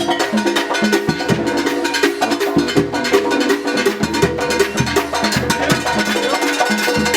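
Oaxacan brass band (banda de viento) playing the muerteada carnival rhythm, with held brass tones over drums, congas and a clanking cowbell-like beat.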